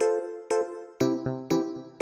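Background music: a light melody of short notes, each struck sharply and fading, several a second.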